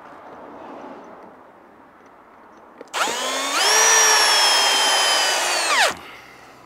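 Cordless drill-driver backing out a screw: its motor whines for about three seconds, picking up speed soon after it starts, sagging slightly under load, then winding down quickly. Before it there is only faint handling noise.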